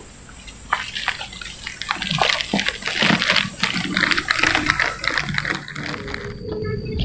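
Footsteps crunching and scuffing on a dirt trail strewn with dry leaves, in irregular strokes, busiest in the middle. A steady high-pitched drone runs under them and stops about six seconds in.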